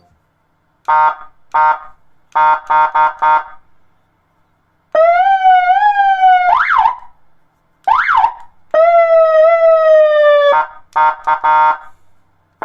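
Electronic police signal unit (SGU) through a loudspeaker horn, running through its signals: two short horn blips, a fast string of beeps, a long buzzing tone, two quick rising-and-falling "quack" sweeps (the kryakalka), another long slightly falling tone, and a final rapid string of beeps.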